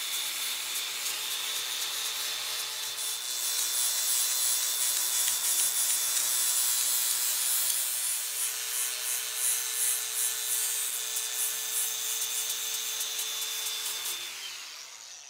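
Handheld angle grinder running steadily with a high whine, its abrasive disc grinding down the steel top of a bush hog's rear wheel spindle shaft, which had been mushroomed by hammering. Near the end the grinder is released and its whine drops as it spins down.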